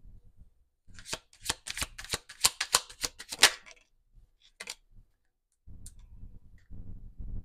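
Tarot deck being shuffled by hand: a quick run of crisp card flicks lasting about three seconds, then a few single card snaps.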